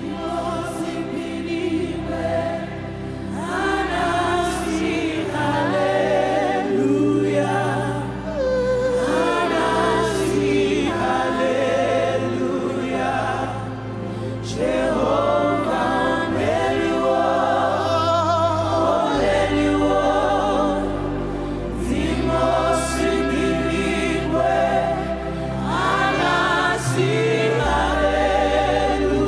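Live gospel worship music: a choir singing slow, drawn-out phrases over sustained bass notes.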